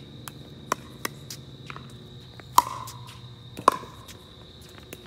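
A pickleball rally: the sharp pops of paddles striking a hollow plastic pickleball, two loud hits about a second apart near the middle, with fainter taps between.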